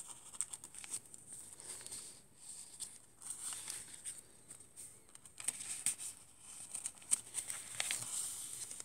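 Paper rustling and crinkling as the pages of a chunky handmade junk journal are turned and its paper inserts handled, with small irregular taps and clicks.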